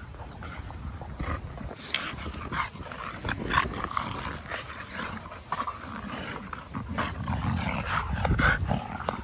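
Several American Bully dogs tussling over a stick they all have in their jaws, with low growls and scuffling. The growling is strongest about eight seconds in.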